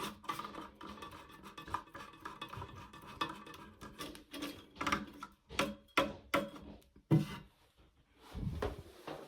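Hard plastic parts of a Siamp toilet fill valve being handled and clicked back into place: irregular clicks, knocks and light rattles, with a sharper knock about seven seconds in and a duller thump near the end.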